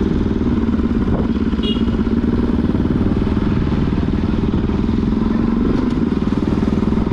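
Motorcycle engine running steadily at an even pitch, with a low rumble underneath.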